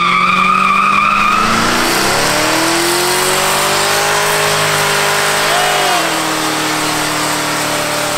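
Stripped-down drift car doing smoky donuts: a high tyre squeal at first fades about a second and a half in into the rush of spinning rear tyres. Meanwhile the engine revs up and holds under wheelspin, then its pitch drops sharply about six seconds in.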